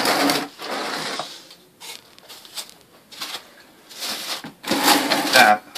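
A trowel scraping and spreading unmodified thinset mortar onto the bottom of a shower curb: a rough scrape lasting about a second and a half, then a few light knocks and taps.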